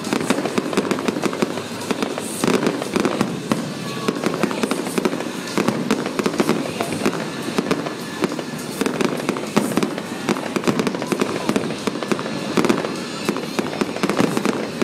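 Fireworks display: aerial shells bursting in a continuous barrage, a dense run of bangs and crackles with no pause.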